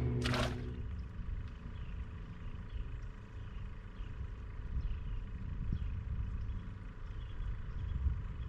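A boat motor's hum cuts off about half a second in, with a short burst of noise, leaving a low, uneven rumble and a faint steady whine.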